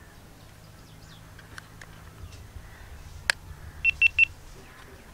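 A sharp plastic click about three seconds in, then three short high beeps from the GoPro Hero 8 as it powers on, with faint handling ticks around them.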